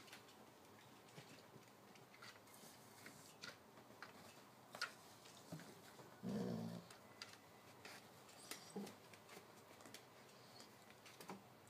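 A dog's brief low growl about six seconds in, against near silence broken by faint scattered clicks and rustles of puppies moving about on the cushion and tiles.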